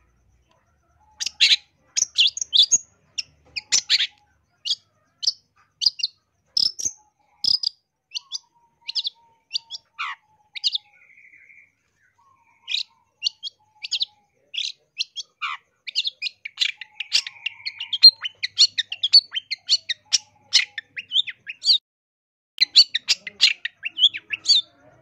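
Long-tailed shrike (cendet) singing a fast, varied string of short, sharp chirps and whistles, a song packed with imitated calls of other birds. There is a brief pause near the middle, then a dense rapid run.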